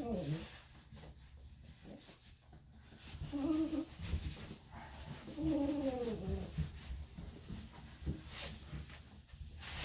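A wet dog being rubbed dry with a towel, the cloth rustling over its fur, while the dog whines twice, briefly about three and a half seconds in and a little longer about five seconds in.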